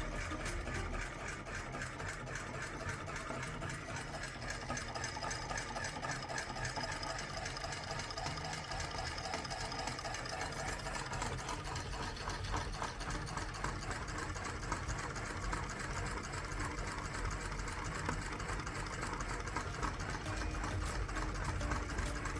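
Electric meat grinder running steadily, its motor and auger making a fast, even rattle.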